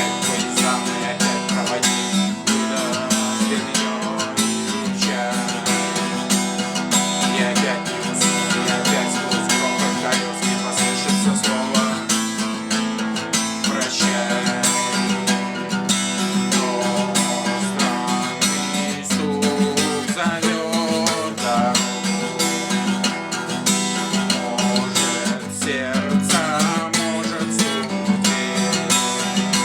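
Acoustic guitar strummed in a steady rhythm, chords ringing continuously.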